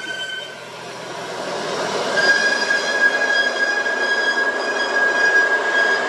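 Heavy trucks climbing a steep wet road, among them a UD Quester hauling two bulldozers on a lowbed trailer: a steady rumble of engines and tyres. Over it sits a high, steady squeal, heard briefly at the start and again from about two seconds in.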